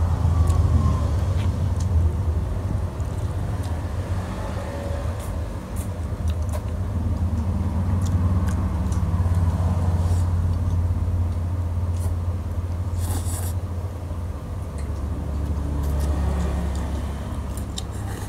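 Someone eating noodle soup: short clicks of chopsticks and a spoon against a glass bowl, and noodles being slurped. Under it runs a steady low rumble, the loudest sound.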